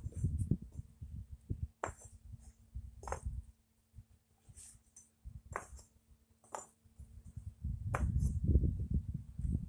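Concrete pavers clacking against each other as they are set by hand, about six sharp knocks a second or so apart. A low rumbling noise runs under them, loudest near the end.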